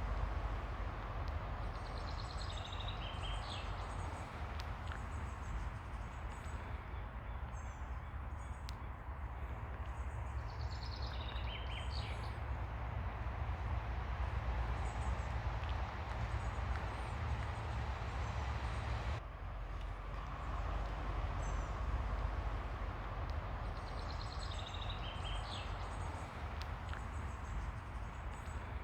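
Ocean surf washing steadily on a beach with a low rumble, while birds give short high chirping calls a few times, about two seconds in, around ten seconds in and near the end.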